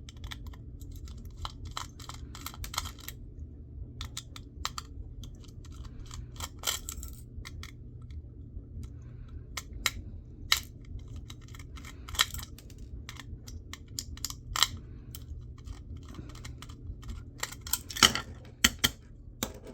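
Small irregular clicks, taps and scrapes of hand tools on a laptop hard drive's metal parts as its magnet is pried out, with a few sharper knocks, over a steady low hum.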